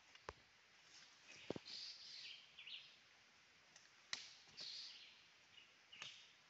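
Near silence: faint outdoor ambience with a few soft clicks and faint high chirps.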